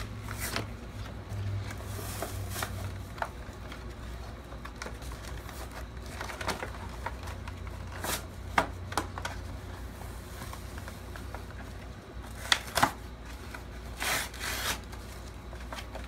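Cardboard toy packaging being handled and pulled open: rustling with scattered sharp clicks and crackles, the loudest a little past halfway, and two longer rasping bursts near the end.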